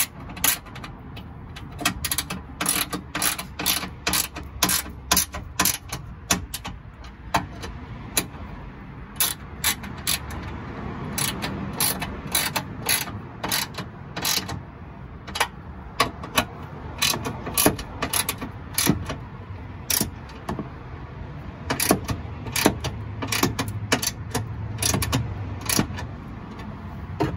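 Hand ratchet clicking in quick runs of strokes with short pauses between them, tightening the fog light mounting bolts.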